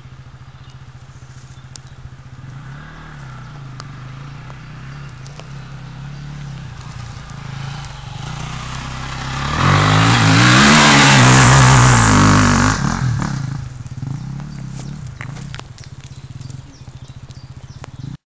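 Enduro dirt bike engines running at low revs, then revving harder and rising and falling in pitch as a bike works its way through the brush close by, loudest about ten to thirteen seconds in before easing off. The sound drops out briefly near the end.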